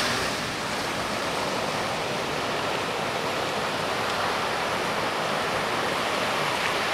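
High-tide sea surf washing up a boat ramp and spilling onto the street: a steady rush of water.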